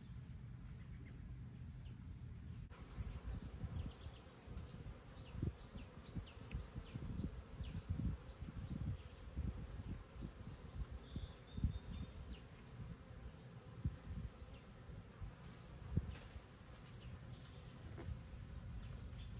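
Insects buzzing and chirring steadily around an open beehive, with irregular low thumps from about three seconds in.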